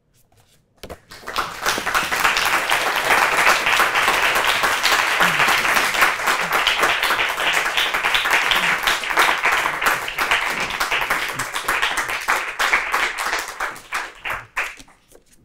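Audience applauding. It swells about a second in, holds steady, then thins to scattered claps and dies away near the end.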